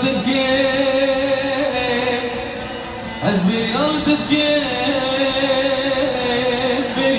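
Middle Eastern song: a singer holds long notes over the music, with a brief dip and slide in pitch about three seconds in.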